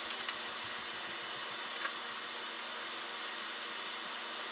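Steady, even hiss, with a few light clicks in the first two seconds.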